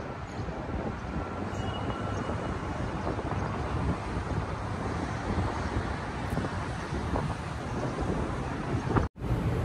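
Steady outdoor city background noise: a low rumble of traffic with wind buffeting the microphone. About nine seconds in, the sound drops out to silence for a moment at a cut in the recording.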